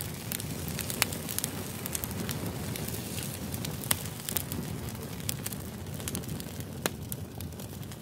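Split firewood burning in a round metal fire bowl: a steady low rush of flame with frequent irregular crackles and sharp pops, a few of them louder than the rest.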